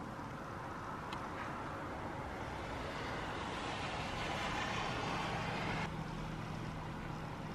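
Steady rush of distant road traffic heard through an open door, growing slightly louder and then dropping suddenly about six seconds in, with a low steady hum near the end.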